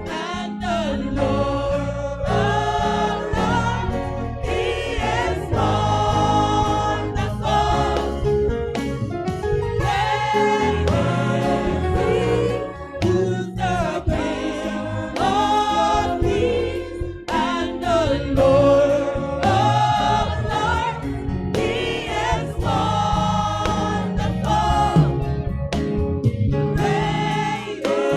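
Gospel choir singing a hymn, many voices together, over a steady low bass.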